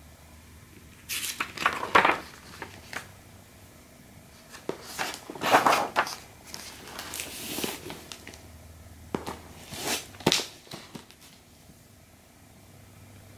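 Pages of a picture book being turned and handled, paper rustling in three bouts of a second or two each.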